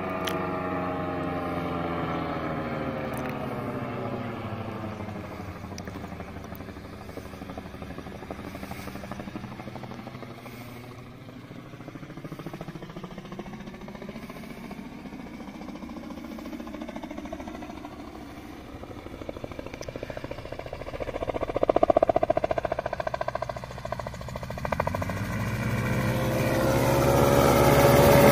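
Gyrocopter in flight with its engine throttled back, the engine note falling in pitch and fading. Past the middle the rotor blades slap in a loud, fast crackle, and near the end the engine and rotor noise grows louder and rises in pitch as the aircraft comes in close.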